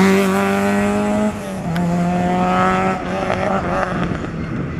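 Volkswagen Golf Mk1 rally car's engine at high revs as the car accelerates away, with a drop in pitch at an upshift a little over a second in and another near three seconds, then climbing again. It grows slightly fainter as the car pulls away.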